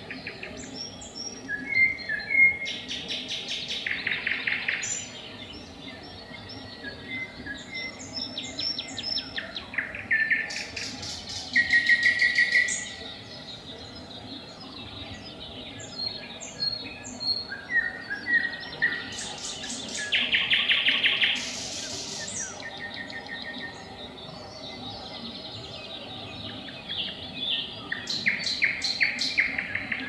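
Nightingale singing: loud, separate phrases of fast repeated clicking notes, trills and clear whistles, each lasting a second or two, with short pauses between them.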